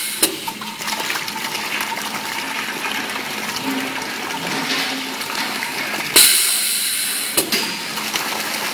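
Semi-automatic liquid filling machine dispensing liquid, a steady rush of flowing liquid. A sudden loud hiss starts about six seconds in and fades over about a second, with a few short clicks.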